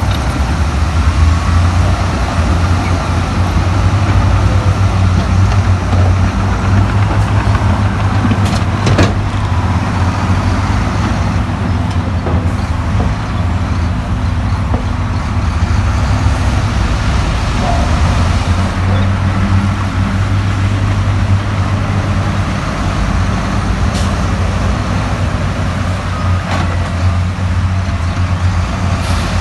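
Heavy diesel earthmoving machinery running steadily, with a deep, even engine drone and a few brief knocks.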